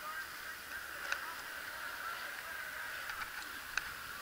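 Distant motocross bikes racing on the track, a steady high-pitched engine buzz, with a few sharp clicks.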